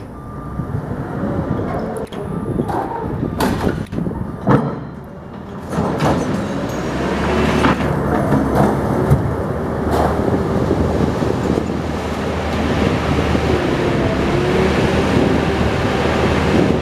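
Heavy demolition machine engine running steadily under load, with metal clanking and several sharp knocks, the loudest a little over four seconds in.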